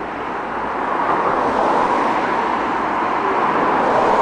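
Road traffic noise: a steady rush of passing vehicles that swells toward the end, as a car comes closer.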